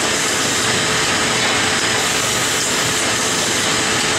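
Wöhler HFA-MIDI radiator-roller assembly machine running in automatic mode: a loud, steady mechanical noise with a faint constant tone underneath.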